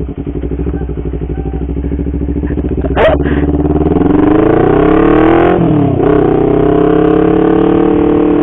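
Honda CBR250RR parallel-twin engine through an R9 aftermarket exhaust, pulling away: a short sharp knock about three seconds in, then the revs climb, drop once at a gear change, and settle to a steady, higher pitch.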